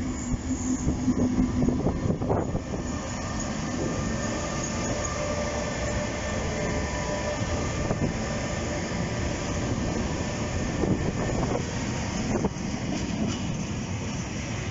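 Freight train hauled by SNCB class 13 electric locomotives passing close by: a steady rumble of wheels on rails, loudest in the first couple of seconds, with a few clacks over rail joints and a faint thin whine.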